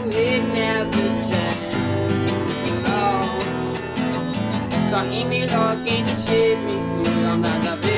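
Acoustic guitar being strummed in a steady rhythm, its chords ringing on between strokes.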